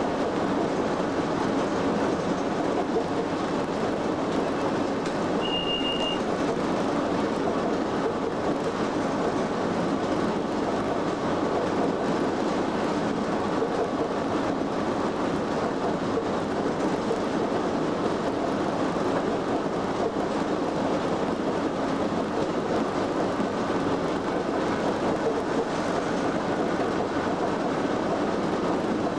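Steady running noise inside the cab of Class 87 electric locomotive 87033 travelling at speed: an even rumble of wheels on rail and machinery, with one short high beep about six seconds in.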